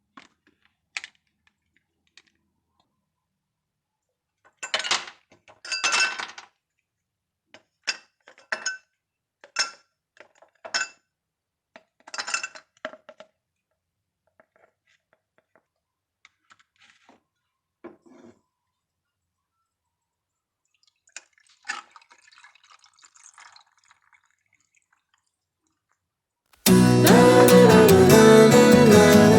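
Glassware clinking: a run of about nine short, ringing clinks, followed by a few faint taps and rustles. Acoustic guitar music starts suddenly near the end and is louder than the clinks.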